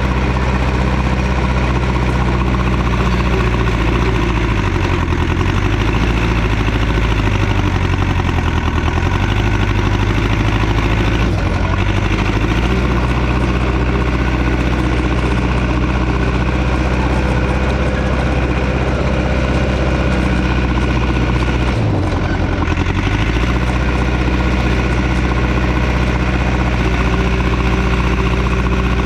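Heavy engine running steadily; its speed drops and comes back up a few times about five to ten seconds in, and once more about 22 seconds in.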